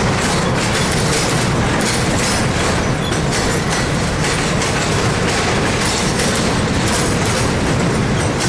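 Double-stack intermodal freight train's well cars rolling past: a loud, steady noise of steel wheels running on the rails.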